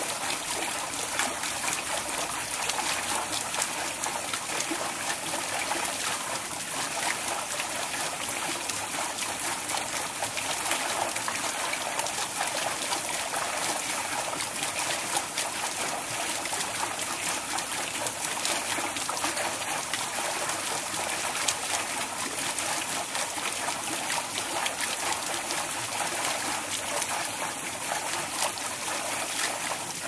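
Water pouring steadily onto the blades of a waterwheel: a continuous rush of falling water with fine splashing and trickling, even throughout.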